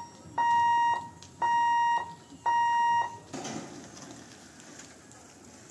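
Electronic warning beeper of a railway level-crossing barrier sounding while the boom barriers lower: steady high beeps about one a second, three more after the tail of one, stopping about three seconds in once the barriers are down.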